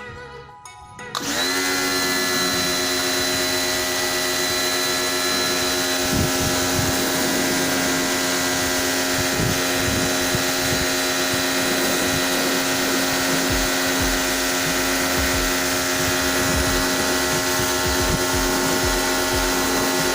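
An electric motor switches on about a second in, comes up to speed within a fraction of a second and then runs at a steady pitch with a loud hiss.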